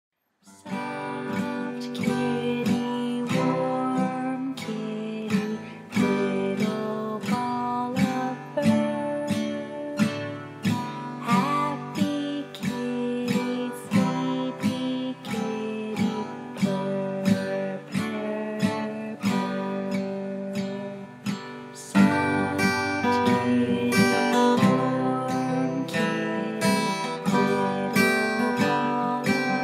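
Background music: strummed acoustic guitar with a steady beat, getting louder about three-quarters of the way through.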